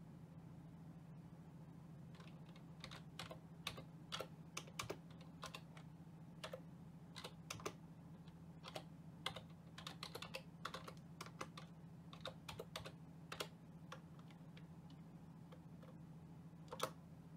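Keystrokes on a computer keyboard typing a command: irregular key clicks from about two seconds in, with short pauses. Near the end comes one louder key press, the Enter key sending the command. A steady low hum runs underneath.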